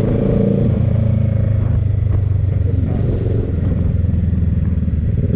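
Parallel-twin sport motorcycle engine running at a steady cruise in low gear, heard from the rider's seat over wind noise, dipping briefly about three and a half seconds in.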